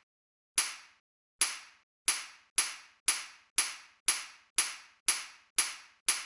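A series of about eleven sharp snapping hits, each with a short fading tail and dead silence between them, coming faster from about one a second to two a second.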